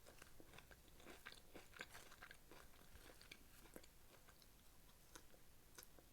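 Near silence with faint, irregular small clicks and ticks.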